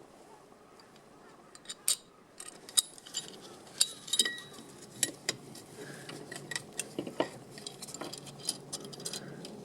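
Irregular sharp clicks and light metallic clinks, some with a brief ring, as of small metal parts or tools being handled.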